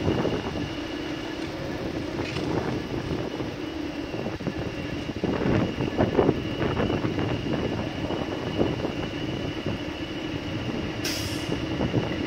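Mobile crane's engine running steadily during a lift, with a constant high whine over the hum. There are a few knocks around the middle and a short hiss near the end.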